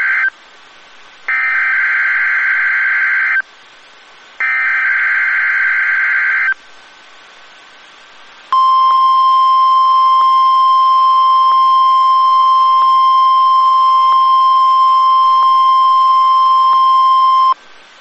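NOAA Weather Radio required weekly test of its alarm signals: the end of one buzzy SAME digital header burst and two more bursts of about two seconds each, a second apart. After a two-second pause comes the steady 1050 Hz warning alarm tone, held about nine seconds and then cut off sharply.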